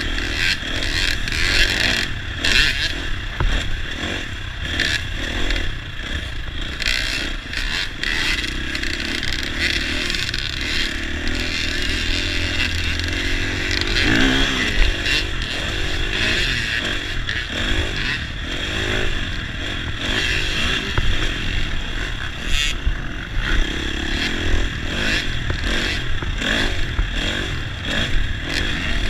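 Dirt bike engine heard from the rider's onboard camera while riding a motocross track. The engine note rises and falls as the throttle opens and closes, with knocks and rattles as the bike goes over the bumps.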